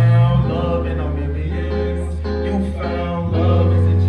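Live band playing a song, with a singer's voice over the instruments; the bass note shifts twice.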